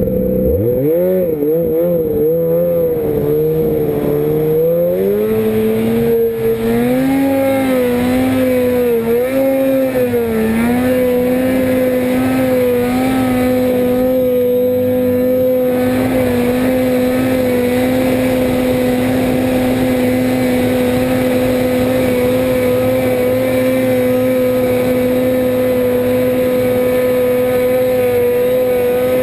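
Ski-Doo snowmobile's two-stroke engine revving, its pitch rising and swinging up and down for the first ten seconds or so, then holding one steady high pitch.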